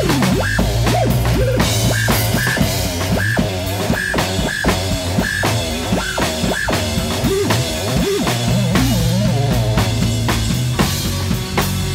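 Music: a drum-kit beat with swooping electronic tones and short repeated high blips.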